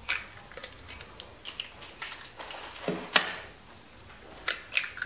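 Eggs being cracked on the rim of a stainless steel bowl: a handful of sharp taps and shell cracks, the loudest about three seconds in.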